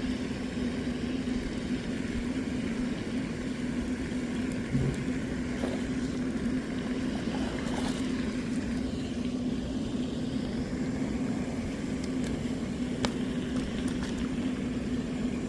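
A steady low mechanical hum, one constant tone over a continuous rush of noise, with a few faint clicks.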